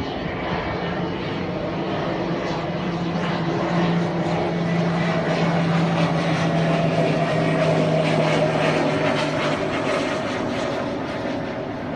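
Airplane flying overhead: a steady engine drone that grows louder, peaks a little past the middle, and fades toward the end.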